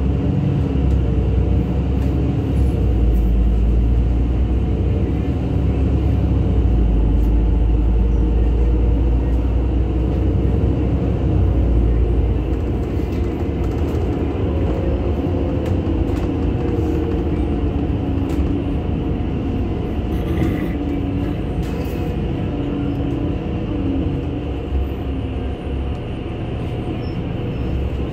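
NefAZ-5299 city bus in motion, heard from inside: a steady low engine and road rumble, with the engine pitch slowly rising and falling partway through.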